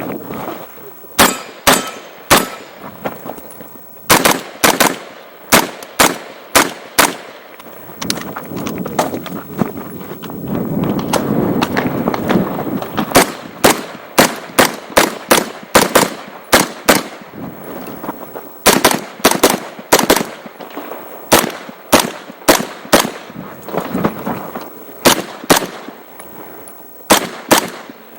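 Pistol-caliber carbine firing a timed course of fire: sharp shots in quick pairs and short rapid strings, with pauses of one to a few seconds between groups as the shooter moves between positions.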